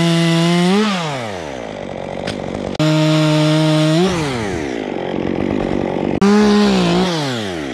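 Two-stroke chainsaw cutting through a tree trunk: three times the engine starts at a steady high pitch and then drops in pitch as the chain bites into the wood.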